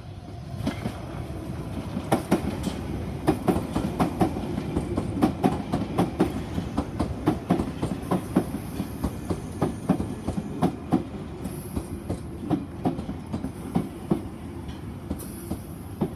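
Piccadilly line 1973 Tube Stock train running into the platform, its wheels clicking rhythmically over rail joints under a steady rumble. A faint high squeal from the wheels comes and goes in the second half.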